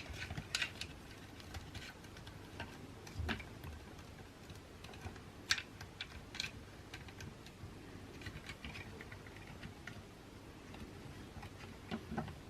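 Faint, irregular clicks and taps of hard plastic toy parts being handled, as an action figure is fitted into the saddle of a plastic toy mount.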